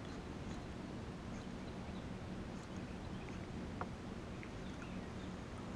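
Electric trolling motor running with a steady low hum, a few faint ticks over it.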